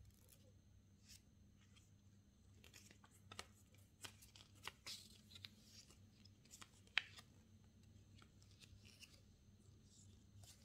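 Faint rustling and light clicks of paper and thin card warranty cards being handled and flexed in the hands. The handling comes in a cluster of small taps and rustles through the middle, with one sharper click about seven seconds in.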